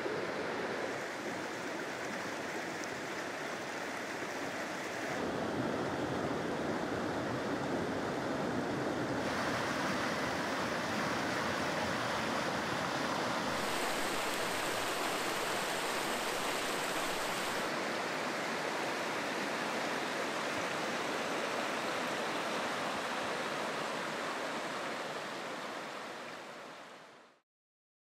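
Mountain trout stream rushing over rocks: a steady sound of flowing water. Its tone shifts several times between stretches of stream, and it fades out near the end.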